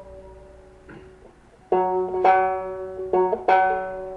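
Five-string banjo: a plucked note fades out, then about four notes are plucked at nearly the same pitch, the 3rd string sounded against the 4th string at the 4th fret to tune the 3rd string down from G to F sharp.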